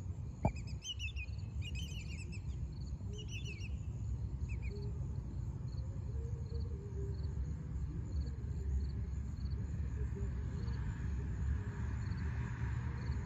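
Birds chirping in quick, high series over a choppy low wind rumble, the chirping thinning out after about four seconds. A faint high chirp repeats about once a second, and a single click sounds about half a second in.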